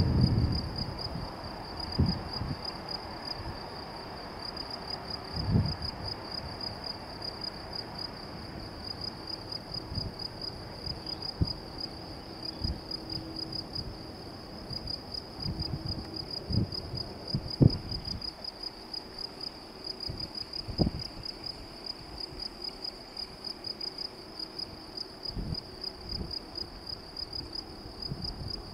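Insects chirring steadily in the grass, a fast-pulsing high trill that never stops. Irregular low thumps break in now and then, the loudest about two, five and seventeen seconds in.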